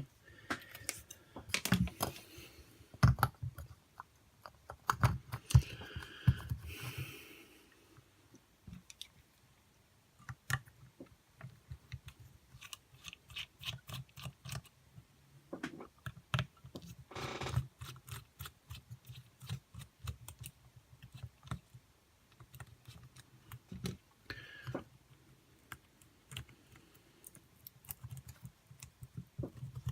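Irregular clicks, taps and brief scrapes of small metal motor parts and tools being handled on a workbench while a brushed RC car motor is worked on.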